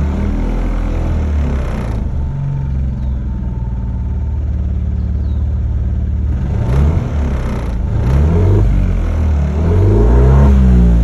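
Dodge Dart engine running at a rough idle, with the engine speed rising and falling several times in the second half. The rough, unsteady idle is the fault the owner is asking for help with.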